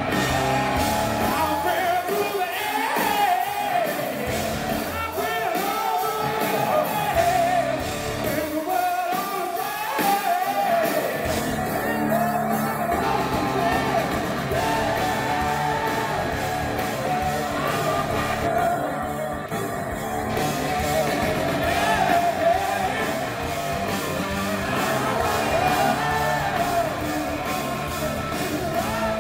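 Hard rock band playing live in a concert hall, heard from the crowd: a singer over electric guitar, keyboard and drums. The sound fills out with a heavier low end about eleven seconds in.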